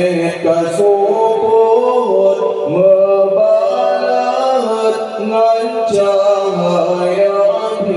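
A man singing an Acehnese qasidah solo into a microphone, in long held notes that slide from pitch to pitch.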